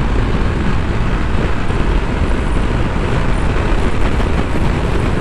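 Steady wind noise buffeting the microphone on a Honda CB200X motorcycle cruising at highway speed, around 105 km/h, with its 184.4 cc single-cylinder engine running underneath.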